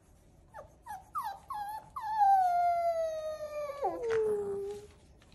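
Seven-week-old boxer puppy giving a few short whimpering yips, then one long howl that slides down in pitch and drops lower near the end.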